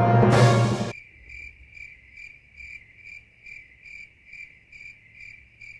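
Music cuts off about a second in, followed by a cricket chirping steadily, about two high chirps a second.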